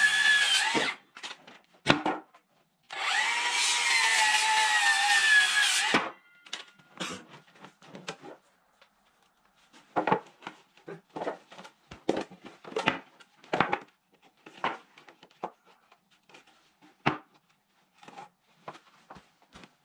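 Handheld circular saw cutting through 2x6 lumber: one cut ending about a second in, then a second cut of about three seconds. After that, a string of irregular wooden knocks as the cut boards are picked up and stacked.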